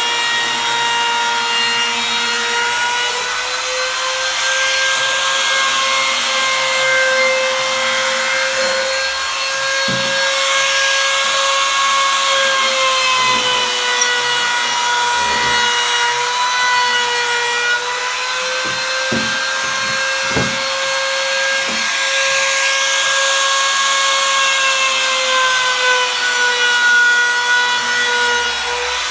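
Handheld trim router with a roman ogee bit running steadily and cutting along the edges of angelim hardwood legs to round them over: a high motor whine with a rasping cut, its pitch sagging slightly now and then as the bit takes load.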